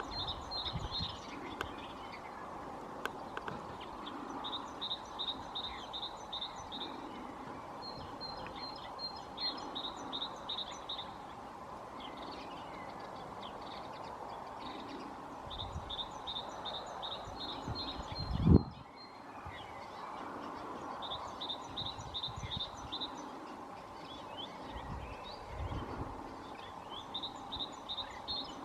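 A small songbird repeating a high, rapid trill of even notes, each phrase lasting two to three seconds and coming every few seconds, over a steady background hum. One loud thump comes about two-thirds of the way through.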